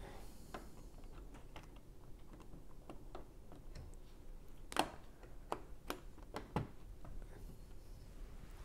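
LEGO pieces clicking as fingers press a long grey tile down onto the top of a brick wall: scattered light clicks, with a handful of sharper snaps about five to seven seconds in.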